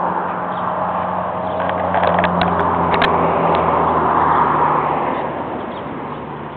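A motor vehicle passing: engine hum and rushing road noise swell to a peak about four seconds in, then fade away. A few sharp clicks come between about two and three seconds in.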